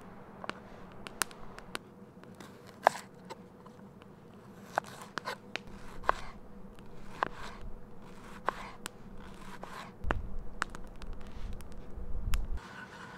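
Knife work on a wooden cutting board: a knife shaving a block of hard cheese, then slicing through an onion. Sharp taps of the blade on the board, with short cutting strokes about once a second in the middle. A low rumble runs for a couple of seconds near the end.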